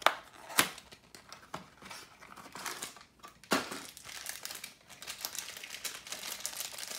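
A cardboard toy-car box is opened with a few sharp clicks and scrapes. Over the last few seconds a thin plastic wrapper crinkles as the die-cast car is unwrapped from it.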